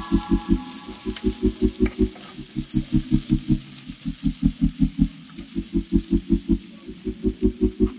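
Spatula stirring chicken pieces in a stainless steel frying pan: quick knocking strokes against the pan, about six a second, in bursts of several strokes with short pauses, over a faint sizzle.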